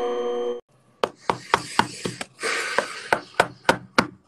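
Rapid knocking on a locked walk-in freezer door by someone shut inside: sharp, evenly spaced knocks, about four a second, starting about a second in.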